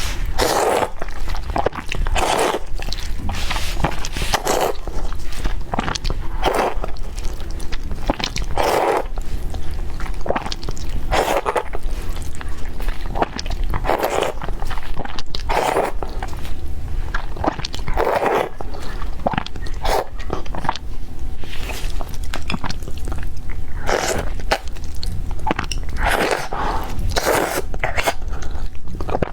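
Close-miked eating: repeated bites and chewing of food, coming every second or two, over a steady low hum.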